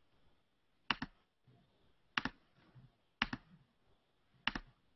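Computer mouse clicking: four double clicks, a little over a second apart.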